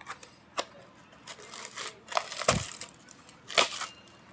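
Packaging being handled: rustling and crinkling with scattered clicks and knocks, and a dull thump about two and a half seconds in.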